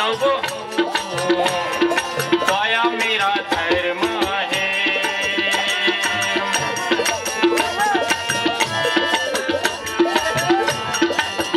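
Devotional bhajan music: quick, steady percussion strikes under a wavering melodic line.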